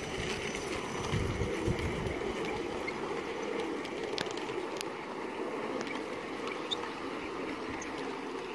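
Gauge 3 model train, a tender-driven electric Hall locomotive and coaches, rolling past on garden track: a steady rumble of wheels on rail with a few sharp clicks, easing off a little as it moves away.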